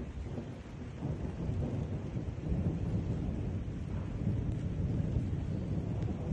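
Rolling thunder rumbling low and growing louder, over steady rain.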